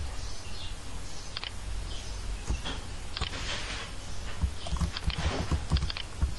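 Computer keyboard keys and mouse buttons clicking in scattered strokes, bunched more closely near the end, over a low steady hum.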